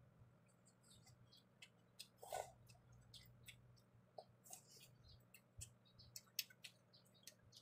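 Faint wet mouth clicks and lip smacks of someone chewing food, scattered irregularly, with a slightly louder smack about two and a half seconds in, over a low steady hum.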